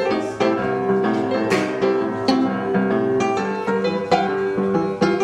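Instrumental background music: a steady run of pitched notes over held chords.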